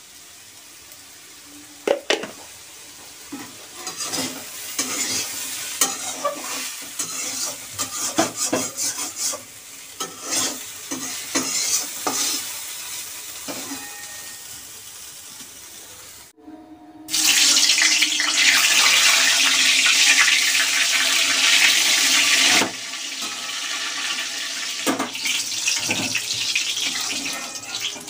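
A flat steel spatula scraping and stirring fried potato strips in a steel wok, in scattered scrapes and clicks. Then, after a short break, eggplant slices sizzling loudly in hot oil for about six seconds, the sizzle dropping to a lower level with spatula scrapes as they are turned.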